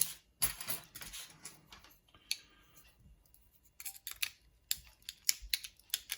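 Small hard clicks and clatters of a padlock and small tools being handled and set down on a parts tray. There is a sharp knock at the start and a quick run of clicks near the end.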